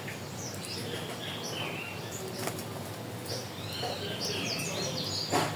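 Several birds chirping and calling over one another in short, high, quick notes against a steady natural background hum. A sharp click sounds about halfway through, and a louder one near the end.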